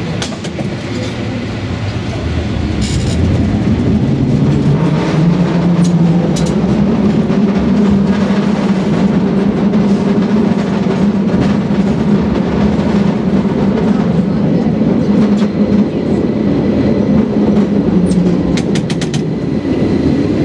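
Rail car running along its track with a steady low hum that rises in pitch over the first few seconds as it gets under way, then holds. Sharp clicks come a few times, with a quick run of them near the end.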